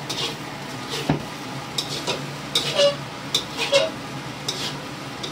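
Metal spatula scraping and knocking against a stainless steel wok in irregular strokes as fried rice is stirred, over a steady low frying sizzle.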